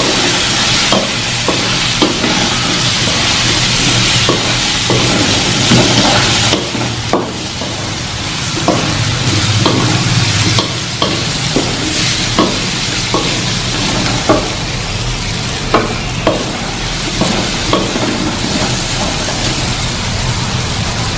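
Half-fried tempeh cubes sizzling in oil and chili paste in a metal wok, stirred with a spatula that knocks and scrapes against the pan every second or so. The sizzle drops back a little about six seconds in.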